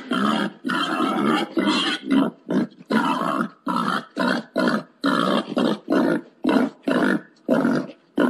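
Wild boar grunting in a rapid series of short, harsh grunts, about two a second: a boar mating call, used to lure wild boar.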